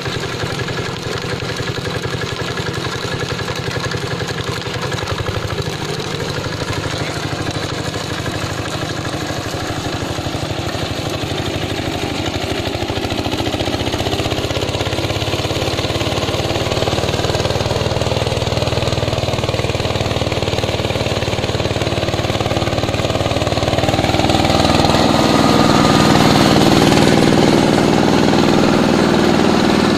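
Trencher's Yanmar SS70C-G single-cylinder diesel engine running steadily. It gets louder and higher about halfway through, and louder again near the end.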